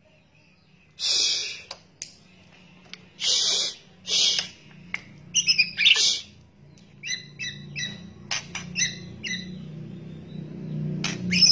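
White-rumped shama giving harsh, rattling 'kretekan' calls, three loud ones in the first half, followed by a run of shorter whistled notes and sharp clicks.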